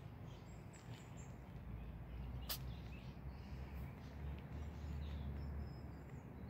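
Faint outdoor ambience: a steady low rumble with a few faint, short, high bird chirps, and one sharp click about two and a half seconds in.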